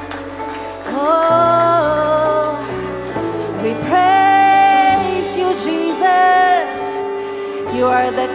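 Live worship music: a singer holding long, wavering notes over the band's steady low sustained notes, which change pitch a few times.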